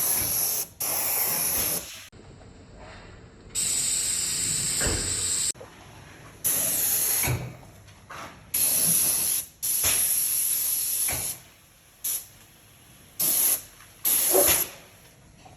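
A spray gun applying rustproofing undercoat to a car's underside, hissing in about nine separate bursts of a fraction of a second to about two seconds each.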